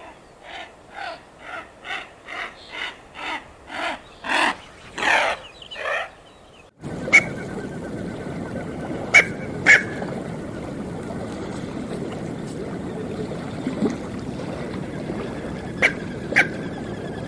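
Smew calling: a run of about a dozen short calls, roughly two a second, growing louder over the first six seconds. Then, after a cut, a steady background hiss with a few short, sharp calls.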